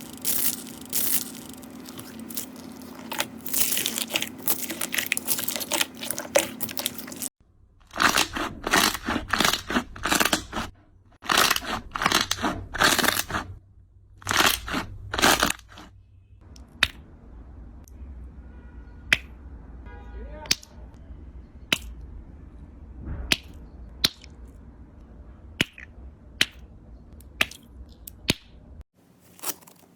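Slime being squeezed and pressed by hand, crackling and crunching. The sound changes abruptly twice: dense crackling at first, then loud crunchy strokes in bursts, then sparse sharp pops and snaps about a second apart.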